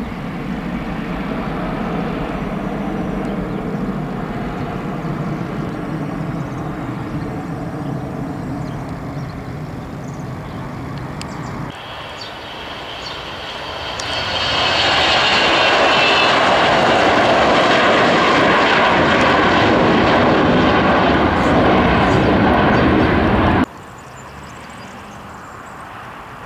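Bombardier Global Express business jets' twin rear-mounted turbofan engines. First comes steady jet noise as one flies low with its gear down. After a cut about halfway through, another takes off at full thrust, much louder, with a high turbine whine. This sound cuts off abruptly near the end, leaving much quieter engine noise from a jet taxiing.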